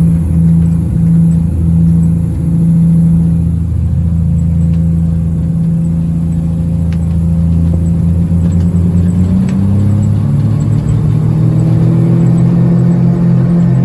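Engines of a small eight-seat propeller passenger plane droning at takeoff, heard from inside the cabin. The low drone pulses unevenly at first, then about nine seconds in its pitch rises and steadies as power comes up.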